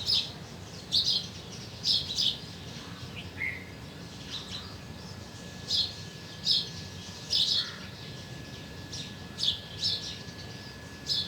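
Distant songbird calling: short high chirps repeated every second or so, often in pairs.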